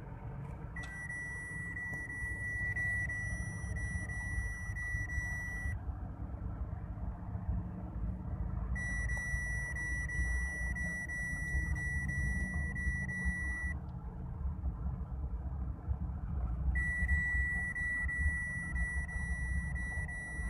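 Steady road and engine rumble heard inside a car cruising on a highway. A high, steady electronic beep tone sounds three times over it, each time for about five seconds with a few seconds' gap between.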